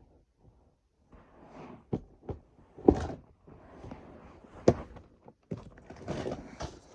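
Knocks and thuds of someone rummaging about, with cupboard-door-like thunks. The sharpest knocks come about three seconds in and again near five seconds, with soft rustling between them.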